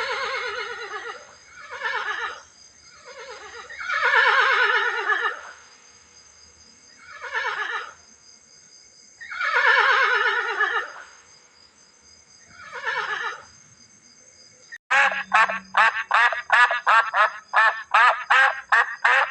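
A horse whinnying, six long shaky neighs that fall in pitch, a second or two apart. About fifteen seconds in, these give way to a quick run of short, sharp calls from another animal, about four a second.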